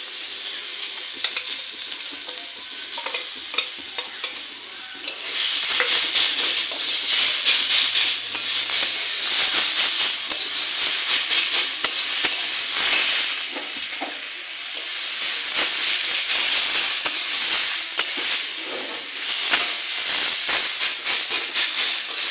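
Greens cooking in mustard-chilli paste sizzling in a metal kadai, with a spatula stirring and scraping the pan in many short clicks. The sizzle gets louder about five seconds in.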